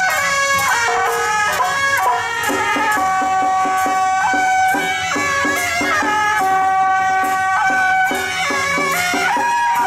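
Loud traditional procession music: a reedy wind melody of held notes moving in steps over a steady, regular beat.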